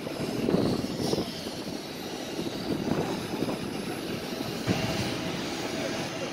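Jet aircraft noise on an airport apron: a steady rushing hum, joined about three-quarters of the way through by a steady whine.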